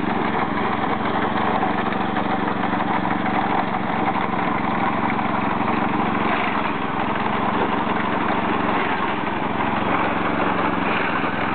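Small engine of a rice harvesting machine running steadily at an even speed as it works along the rows.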